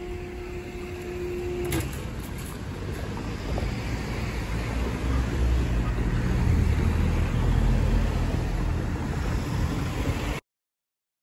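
The level crossing's warning alarm sounds a steady tone and cuts off with a click about two seconds in, a sign that the crossing is reopening after the train. Road traffic then drives over the crossing, engine and tyre noise building louder, until the sound cuts off abruptly near the end.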